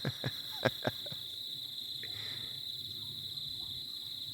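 Steady, high-pitched chorus of night insects trilling, with four sharp clicks in the first second.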